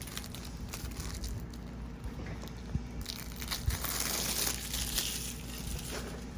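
Plastic packaging on a Blu-ray case crinkling and crackling as it is handled and opened, louder a few seconds in, with a few light clicks.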